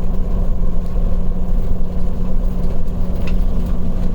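Vehicle engine and road noise heard from inside the cab while driving: a steady low rumble with an even engine hum.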